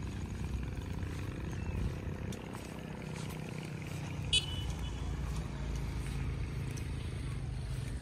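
Steady low drone of a distant engine, with one short, sharp high chirp about four seconds in.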